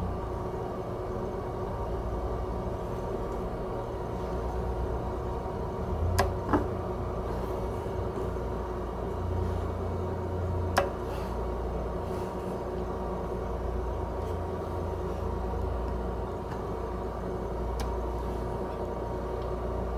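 ACMI 300 W xenon endoscopy light source running with a steady hum from its cooling fan. Four sharp clicks come as its light-guide adapter turret is turned from one connector position to the next.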